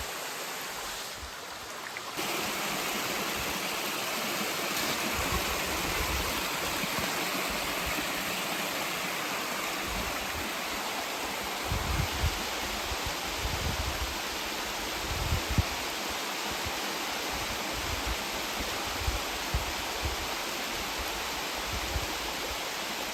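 Waterfall and creek water rushing steadily, with a few brief low rumbles about halfway through.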